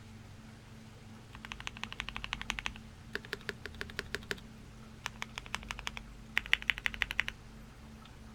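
Typing on a Jelly Epoch 75% gasket-mount mechanical keyboard with lubed C3 Equalz Tangerine linear switches on an FR4 plate and GMK keycaps. There are four runs of rapid keystrokes, beginning about a second and a half in, and the last run is the loudest.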